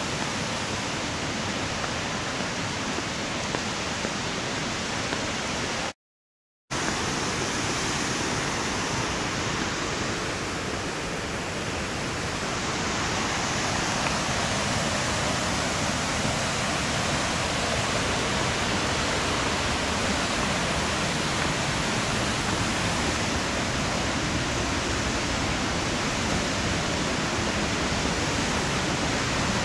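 Steady, even rushing of water, with a short break in the sound about six seconds in.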